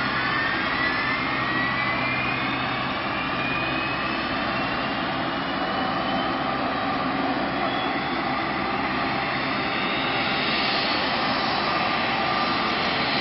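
Embraer 195's GE CF34-10E turbofan spooling up: a whine rising slowly in pitch over a steady rushing noise.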